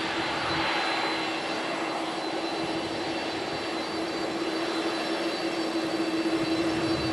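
Jet airliner engines making a steady rushing noise across the airfield, under a constant electrical hum from a faulty microphone.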